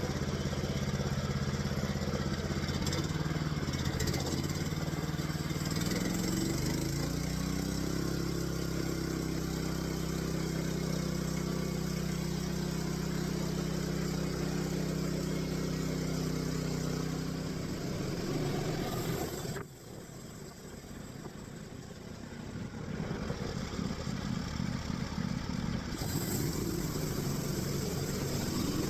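Homemade sawmill's engine running, revving up a few seconds in and then holding a steady speed. About two-thirds through the steady tone drops away suddenly, leaving a rougher, noisier running sound.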